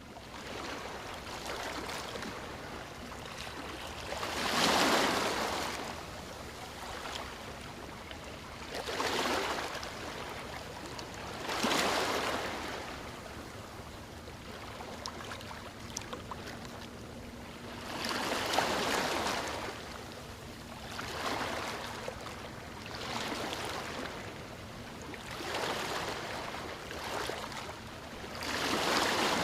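Flowing river water rushing steadily, swelling into louder surges every few seconds.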